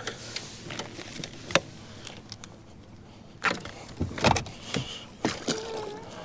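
Bow-mounted trolling motor being swung down from its stowed position into the water, with clicks and knocks of the mount and deck gear. A cluster of louder clunks comes about three and a half to five seconds in.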